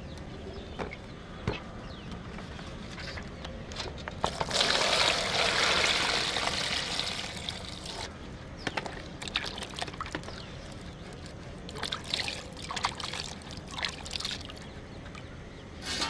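Water poured from a steel vessel into a plastic tub of pomelos, a loud steady splash lasting about four seconds, from about four seconds in. A few light knocks come before it, and after it the fruits slosh and splash as they are rubbed and turned in the water.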